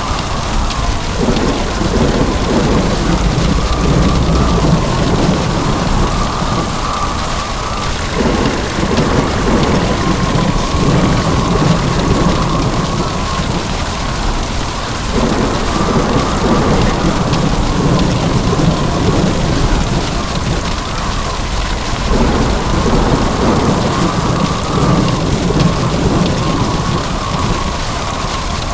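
Heavy rain with thunder: a steady, loud downpour with low rumbles of thunder that swell and fade, recurring about every seven seconds.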